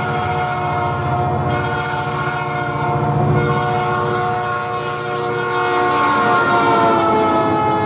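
Rocky Mountaineer diesel locomotives approaching and passing, the lead unit's air horn blowing a steady chord. The horn drops in pitch about six seconds in as the locomotive goes by, over the low rumble of the engines.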